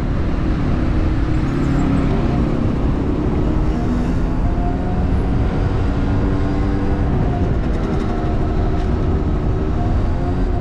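Motor vehicle engine running at low road speed, its pitch drifting gently up and down, over a heavy rumble of wind on the microphone.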